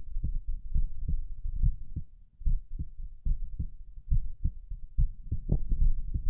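Human heartbeat recorded close to the chest: a regular series of low, dull thumps, about two a second, over a low rumble.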